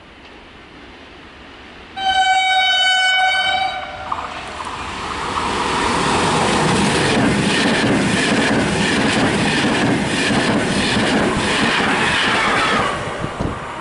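An InterCity passenger train's horn sounds one steady blast of a little under two seconds. The train then passes, its wheels clattering over the rail joints with a loud rush of noise that dies away near the end.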